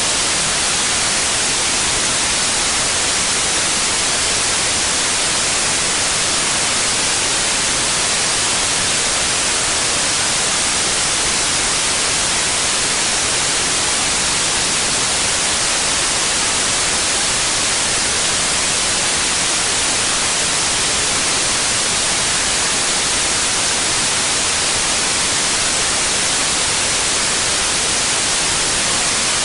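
Steady white noise: an even, unchanging hiss spread across the whole range of pitch, with no breaks or variation.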